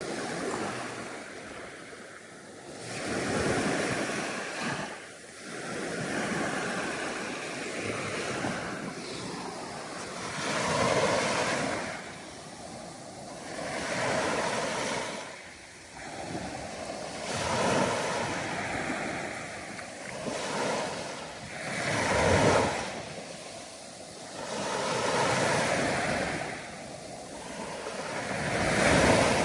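Ocean surf: waves breaking and washing in, the rush swelling and fading again every few seconds.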